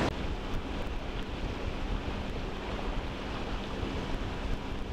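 A sailboat's engine running steadily, a low hum under the wash of water along the hull and light wind noise.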